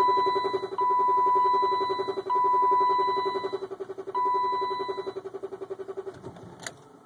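The 1995 BMW 325i's 2.5-litre straight-six turning over on the starter without firing, a rhythmic chug of about ten beats a second that fades and stops about six seconds in: the hard-start fault, cranking that won't catch. Over it a high electronic beep sounds in four long tones with short gaps, ending about five seconds in.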